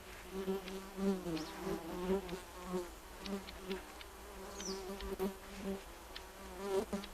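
A flying insect buzzing close by, its drone wavering in pitch and swelling and fading as it moves about. A short, high, falling bird chirp sounds once, about two-thirds of the way in.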